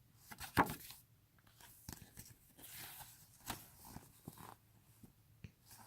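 Paper rustling with scattered light clicks and taps as a printed album booklet is handled and leafed through.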